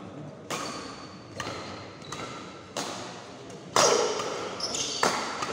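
Badminton rackets striking the shuttlecock in a doubles rally: six sharp hits, about one a second, each with a short echo, the loudest just under four seconds in.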